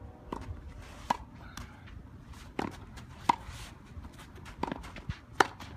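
Tennis balls struck by rackets in a volley exchange at the net: about six sharp hits, roughly one a second.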